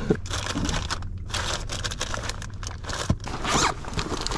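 Plastic soft-bait packs rustling and crinkling as a hand rummages through a storage compartment of a bass boat, with short scrapes and crackles.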